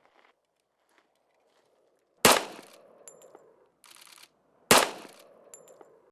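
Two shots from a Colt Gunsite 1911 pistol in .45 ACP, fired about two and a half seconds apart; each loud report trails off in a short echo.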